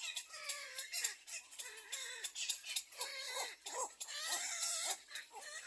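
Baby birds in a nest calling in rapid short squeaky chirps, with scratchy clicking and rustling mixed in.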